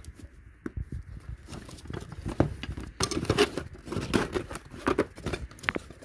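Hands rummaging through a soft tool bag: tools shifting and knocking against each other, with rustling. It is sparse at first and gets busier about halfway through.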